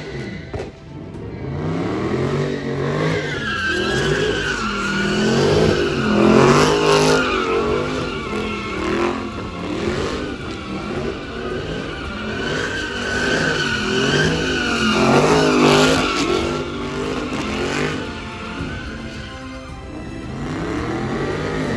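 Dodge Charger's engine revving up and down again and again while its rear tyres squeal in long, wavering screeches as it spins donuts. It is loudest about six and fifteen seconds in.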